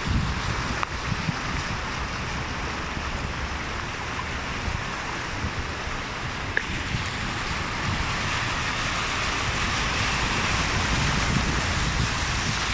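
A car driving through a flooded street, its tyres pushing through floodwater with a steady rushing wash, a little louder in the second half.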